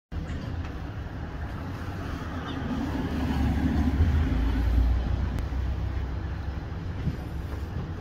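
Low rumble of a passing vehicle, swelling about halfway through and easing off again.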